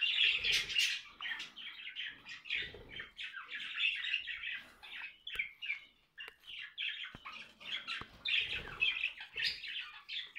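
Budgerigars chattering and warbling: a dense, nearly continuous run of short chirps and squawks, the courtship warble of birds in breeding condition. A few faint clicks are heard around the middle.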